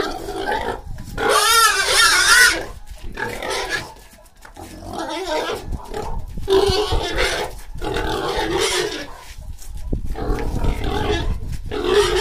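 A pig squealing in a series of loud cries while it is being caught and held by the tail and a snout rope, the loudest squeal about two seconds in.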